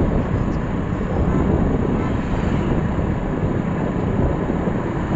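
Steady, loud rushing noise of wind buffeting the microphone while riding along a road, mixed with vehicle and road noise.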